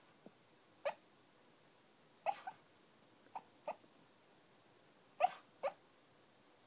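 A small dog barking softly in his sleep while dreaming: seven short woofs, mostly in pairs, the loudest about five seconds in.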